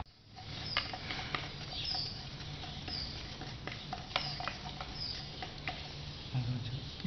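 Paintbrushes dabbing resin into a layer of fiberglass mat to wet it out, giving irregular soft taps and clicks. Short high squeaky chirps come about once a second.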